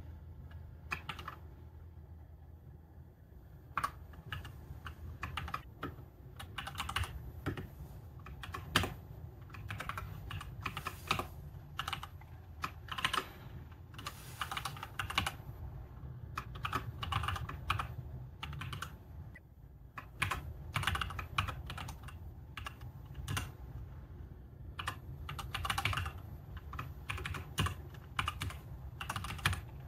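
Typing on a computer keyboard: runs of quick keystroke clicks broken by brief pauses.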